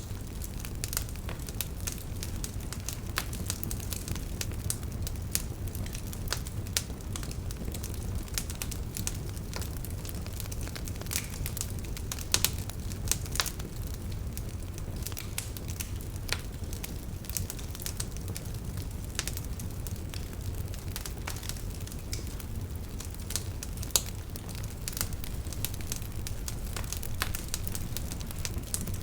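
Campfire burning with frequent irregular crackles and pops over a steady low rumble of the flames.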